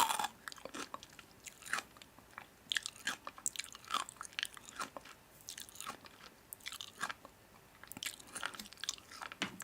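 A person biting and chewing crunchy food close to the microphone: irregular crisp crunches, several a second at times.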